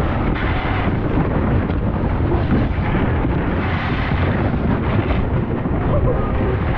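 Plastic kayak hull sliding fast over packed snow: a loud, steady rumbling scrape picked up close to the hull.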